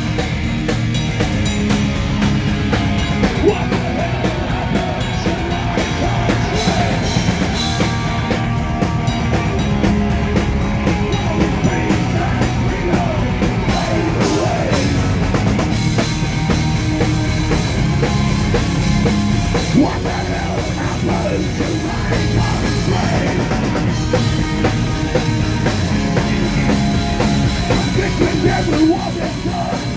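Live metal band playing an instrumental stretch of a thrash metal song: distorted electric guitars over fast drumming, loud throughout.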